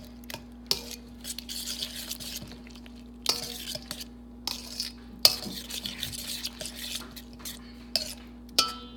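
A utensil stirring a spinach-and-cheese quiche mixture in a bowl, in irregular scraping strokes with sharp clinks against the bowl, the loudest about five seconds in.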